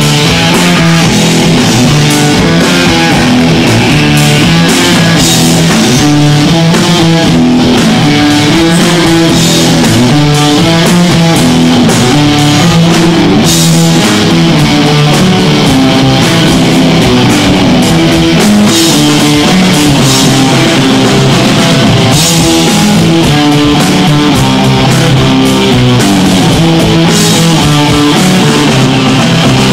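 Old-school hardcore punk band playing live and loud: electric guitars over bass and a drum kit.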